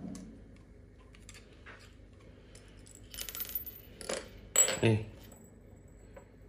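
Small metal parts of a PCP air-rifle valve clinking as they are handled with pliers and set or tipped onto a tiled floor: a light rattle about three seconds in, then a few sharp metallic clinks with a brief ring, the loudest about four and a half seconds in.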